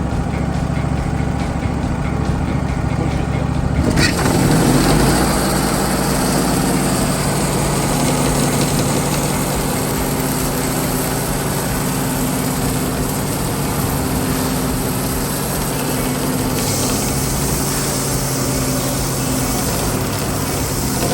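Small engine running steadily. About four seconds in, a louder, even hissing noise joins it and carries on alongside the engine.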